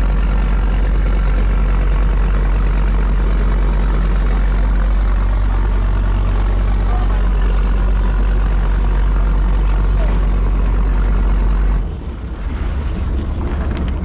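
Fishing boat's inboard engine running steadily with a loud low drone. About twelve seconds in it changes abruptly to a quieter, different engine hum.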